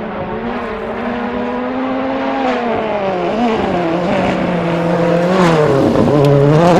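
Toyota Yaris WRC rally car's turbocharged engine revving hard as it drives fast on gravel, growing louder as it comes closer, its pitch dropping near the end as it passes.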